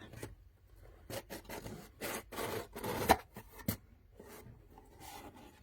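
A cardboard box being opened by hand: irregular rubbing and scraping of the lid and flaps, with a few sharp clicks, the loudest about three seconds in.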